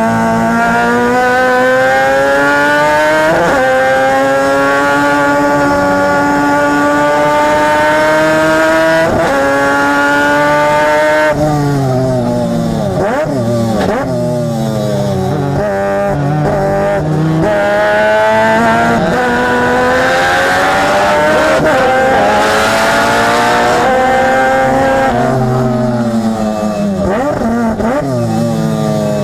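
Peripheral-ported 13B two-rotor rotary engine of a Mazda RX-8 race car, heard right at the exhaust, revving hard up through the gears with the pitch dropping sharply at each upshift. Around 12 to 14 s and again near 27 to 28 s the revs fall with quick blips, as on downshifts into corners.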